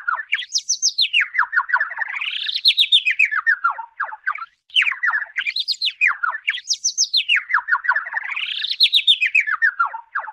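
An artificial chirping sound effect: rapid trains of short chirps whose pitch sweeps up and down, with a brief break about four seconds in, after which the same pattern repeats like a loop.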